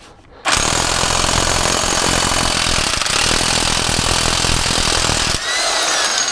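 Impact wrench hammering on the 36 mm front axle hub nut for about five seconds, then spinning with a falling whine as it winds down.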